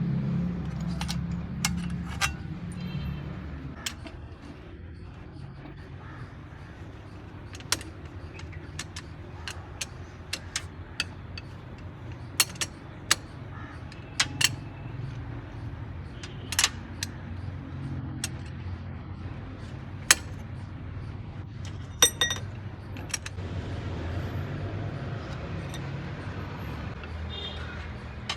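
Sharp metallic clinks and taps of tools and metal parts being handled, a dozen or so scattered irregularly, one about three-quarters of the way in ringing briefly, over a steady low rumble.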